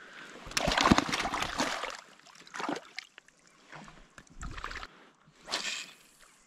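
Lake water splashing and sloshing around an inflatable float tube in a few irregular bursts, the longest and loudest about a second in, then shorter ones.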